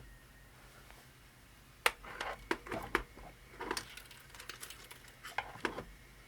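3D-printed plastic robot parts being handled on a workbench: a sharp click about two seconds in, then a run of irregular clicks and light rattles.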